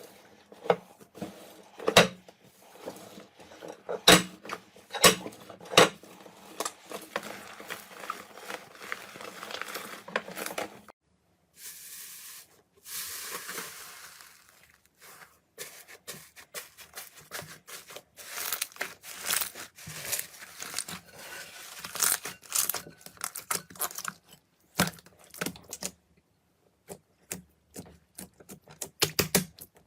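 Slime being squeezed, poked and stretched by hand: sticky crackles, pops and sharp clicks, dense in places and sparse in others. The sound breaks off briefly a little after ten seconds, then a hissing crackle follows for a few seconds.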